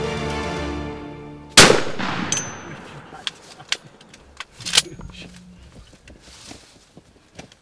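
Background music fades as a single loud shotgun blast goes off about a second and a half in and dies away. A second, smaller sharp crack follows about three seconds later, among light knocks and rustles.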